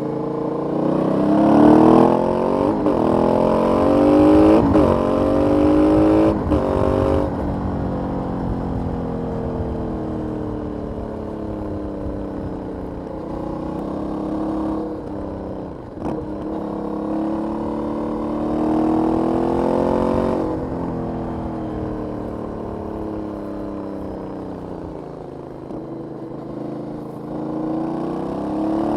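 Aprilia 900 V-twin motorcycle on its stock exhaust being ridden hard: it revs up through three or four quick upshifts, then the engine note falls away in a long deceleration. It pulls up through the revs again and falls back, and it picks up once more near the end.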